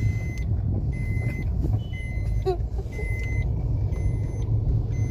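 Car cabin noise while driving: the steady low rumble of the engine and tyres, with a faint short beep repeating every second or so.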